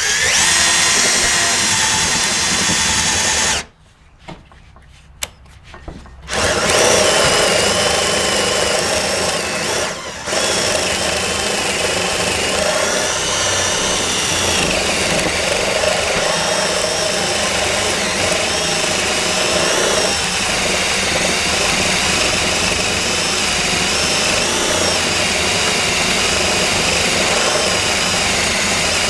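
Bosch 12V cordless drill (GSR12V-140FC) boring a spade bit horizontally through a wooden board. The motor runs under load, stops for a couple of seconds near the start, then runs on without a break, its whine wavering as the bit bites into the wood.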